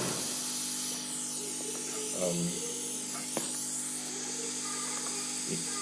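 Soldering fume extractor fan running with a steady hum and hiss, and a single sharp click about three and a half seconds in.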